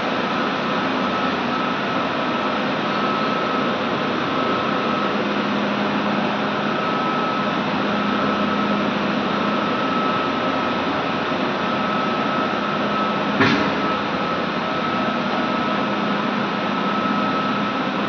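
Steady machinery noise of a running industrial steam boiler plant: an even roar with a faint high whine and a low hum. A single sharp knock about thirteen seconds in.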